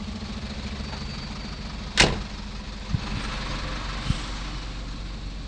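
Truck engine idling steadily, with a single sharp bang about two seconds in and two lighter knocks after it.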